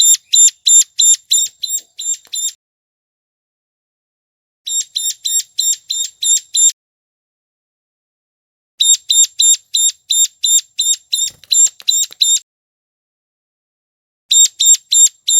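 Ciblek gunung (a prinia) calling in bouts of rapid, evenly spaced high chips, about five a second, each bout lasting one to four seconds with pauses of about two seconds between. It is a lure call recording for attracting wild birds.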